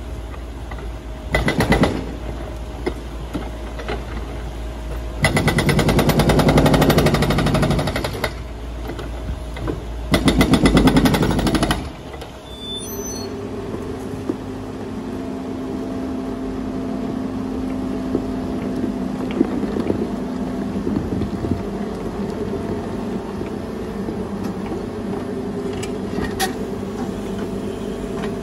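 A walking excavator's hydraulic breaker hammer pounds concrete in three bursts of rapid blows, each one to three seconds long, over the machine's running engine. After about twelve seconds the hammering stops and the steady running of the Menzi Muck M545x walking excavator's engine and hydraulics takes over as it works rubble with a demolition grapple, with one sharp knock near the end.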